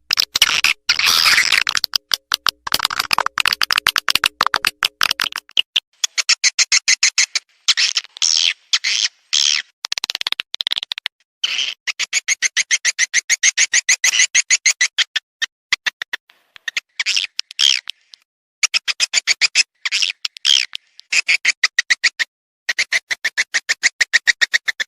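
Swiftlet lure call played back: recorded swiftlet twittering as rapid trains of high chirps, broken every second or two by short silent gaps. It is the call played at swiftlet houses to draw swiftlets in to nest.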